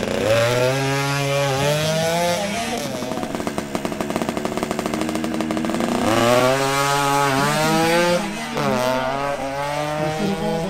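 Suzuki AX100's single-cylinder two-stroke engine accelerating hard on a drag-strip launch, its pitch climbing and dropping back at each gear change. A second climb through the gears starts about six seconds in.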